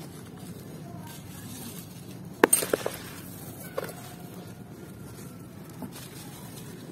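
Hands crushing and crumbling dry clumps of sand and cement with gravel, giving gritty crunches: a loud cluster of crunches about two and a half seconds in, a single one near four seconds and a faint one near six, over a steady low hiss.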